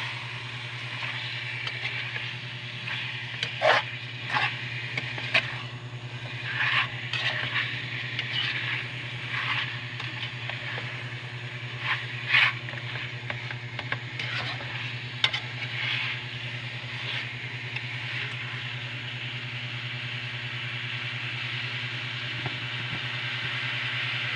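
Pork and liver frying and sizzling in a metal pan while they are stirred with a metal spoon. The spoon scrapes and clinks against the pan now and then, mostly in the first two-thirds, and the sharp clinks are the loudest sounds.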